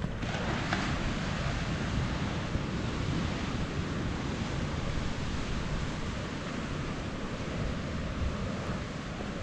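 Steady rushing noise of sea surf mixed with wind buffeting the microphone, coming in abruptly at the start.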